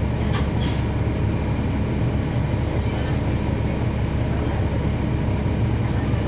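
Cummins ISL9 straight-six diesel engine of a NABI 40-foot transit bus, heard from on board, running with a steady low drone. A few brief hisses and rattles sound near the start and around the middle.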